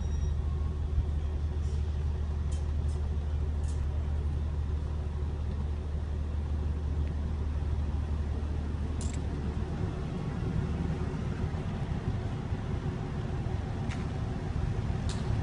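Electric double-deck regional train pulling out of the station past the platform. A steady low hum at first, then rolling wheel noise building from about ten seconds in, with a few short clicks.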